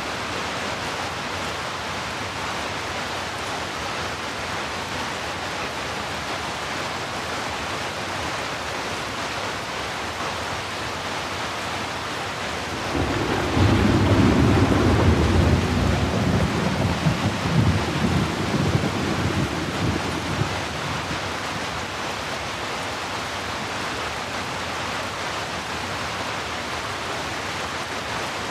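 Steady heavy rain. About halfway through, a roll of thunder comes in, rumbles low for several seconds, and fades back under the rain.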